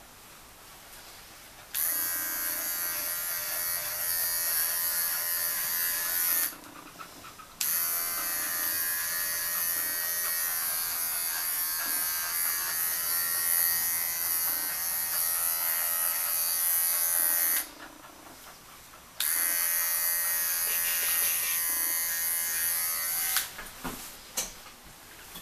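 Electric pet grooming clipper buzzing steadily as it trims a cocker spaniel's fur. It is switched on about two seconds in and runs in three stretches, with short breaks around six and eighteen seconds in. It stops shortly before the end, followed by a few light clicks.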